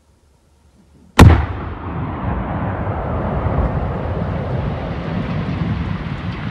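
Controlled detonation of a 400 kg World War II aerial bomb. A single sharp, very loud blast about a second in, followed by a long, low rumble that carries on.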